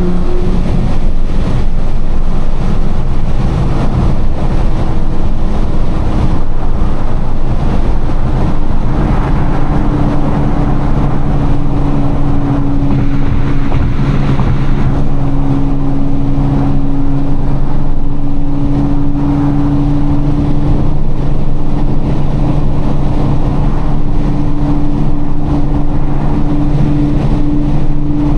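Nissan GT-R R35's twin-turbo V6 droning steadily at highway cruising speed, heard inside the cabin over a dense rumble of road noise.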